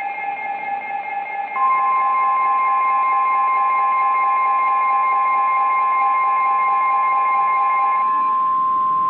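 Steady electronic tones, then about one and a half seconds in a loud, steady single-pitch alarm tone starts. This is the NOAA Weather Radio 1050 Hz warning alert tone, which signals that a warning broadcast is about to follow. The lower tones under it stop near the end.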